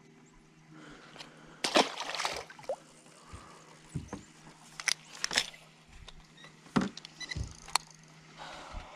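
Several sharp knocks and clicks at irregular intervals over faint water sloshing, with a low steady hum underneath.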